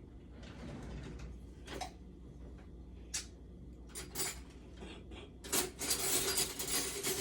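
Kitchen dishes and utensils clinking while an egg wash is being readied: scattered knocks and clinks, then a couple of seconds of dense, rapid clatter near the end.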